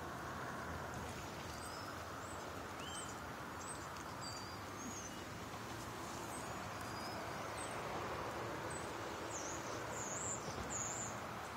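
Steady rushing of a fast-flowing, rain-swollen river, with many short, high bird chirps and whistles scattered over it, a few louder ones near the end.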